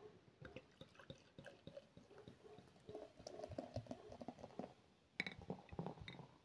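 Lager poured from a glass bottle into a glass beer stein, faint trickling and fizzing of rising foam with many small crackling clicks. A few sharper clicks come about five seconds in.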